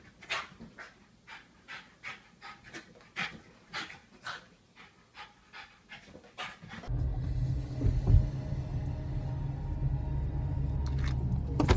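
Small white dog panting in quick, sharp huffs, about two to three a second, as it leaps at a balloon. About seven seconds in it gives way to a louder, steady low rumble of a moving car's cabin.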